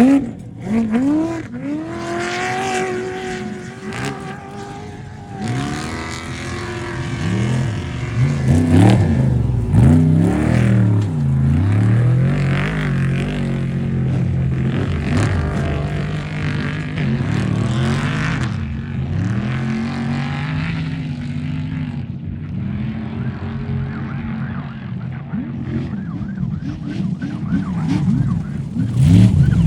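Off-road race truck engines running hard, revving up and down so the pitch keeps rising and falling, with several engines overlapping at times.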